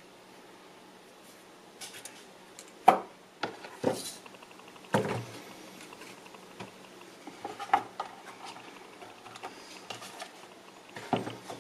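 Plastic instrument cluster housing and metal gauge plate handled on a workbench: five or so knocks and clatters, the loudest about three seconds in, with faint rubbing between them.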